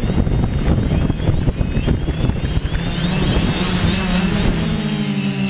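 Small multirotor drone's propellers and motors: rumbling buffeting at first, then from about three seconds a steady pitched hum from the spinning rotors, with a thin high electronic whine throughout.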